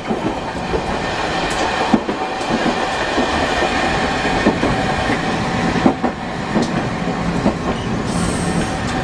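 Nagasaki Electric Tramway streetcar running along its track, heard from inside the car: a steady rumble of wheels and running gear, with a few knocks at irregular spacing as the wheels pass over rail joints.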